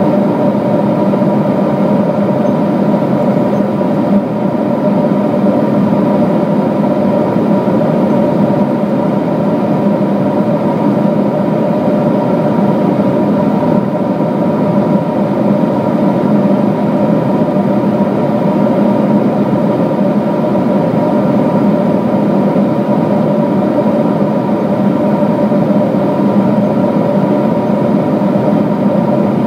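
Cabin noise of a Boeing 777-200 in cruise, heard inside the cabin at a window seat over the wing: a loud, even rush of jet engines and airflow with a few steady hum tones.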